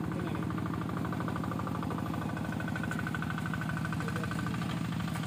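A small engine running steadily nearby, with a fast, even chugging pulse.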